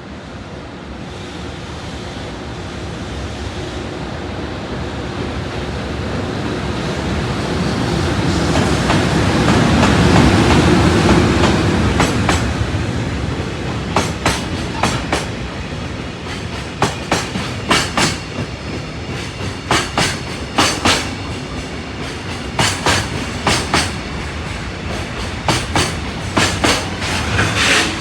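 Train passing through at speed: the rumble builds to a peak about ten seconds in, then the wheels clack over rail joints in quick pairs as a long string of wagons goes by.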